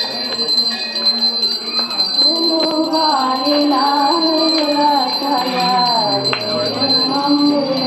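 Hand bell rung continuously for aarti, a steady ringing with quick strikes. From about two seconds in, devotional music with a wavering, gliding melody joins it.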